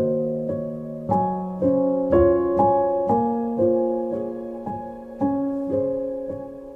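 Slow instrumental piano music: chords and single notes struck about every half second, each ringing and fading before the next.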